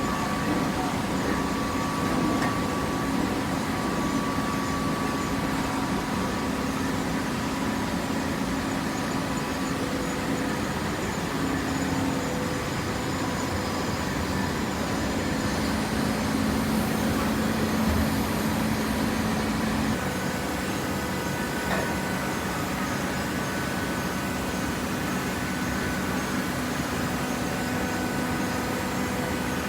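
Hydraulic waste-paper baler running: a steady machine hum from its pump and motor, with a slight change in tone about two-thirds of the way through.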